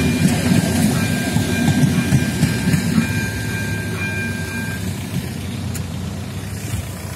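Passenger train coaches rolling past and away over the rails, a low rumble that fades as the train leaves. A steady high tone sounds over it and stops about five seconds in.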